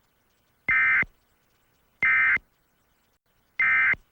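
Emergency Alert System digital data tones (SAME): three short, identical electronic warbling bursts about a second apart.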